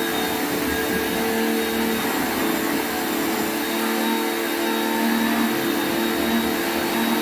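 Pressure washer running steadily under load: a constant motor hum with a few held tones and a strong, even hiss of water spraying.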